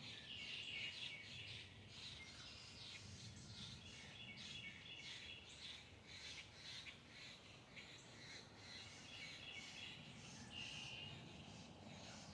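Faint, continuous chirping and calling of many birds at once, a busy chorus of short high notes.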